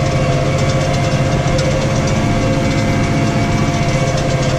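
New Holland T6.155 tractor engine running steadily under load while pulling a plough, labouring as it crosses a tram line.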